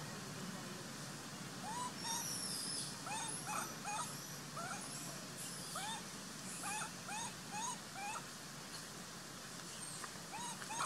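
Macaque whimpering: many short, high calls, each rising then falling in pitch, repeated about one to two a second.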